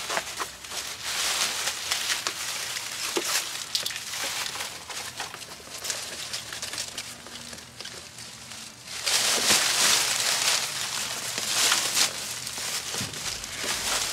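Dry fallen leaves crackling and rustling under raccoons as they scramble and root through the leaf litter, louder for a few seconds about two-thirds of the way through.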